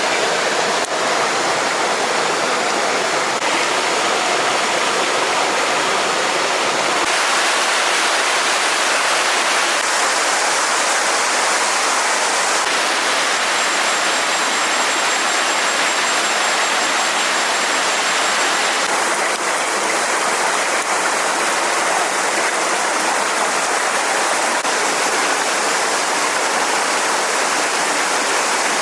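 Steady rushing of flowing stream water, its tone changing abruptly several times as one shot cuts to the next.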